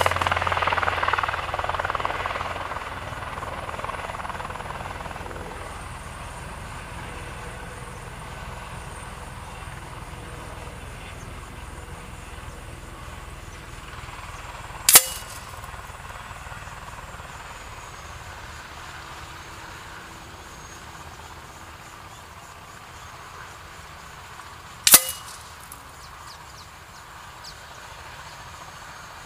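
Two sharp cracks about ten seconds apart: pellets from a PCP air rifle striking the paper target and its cardboard backing. Between them a steady hiss of wind, stronger for the first few seconds.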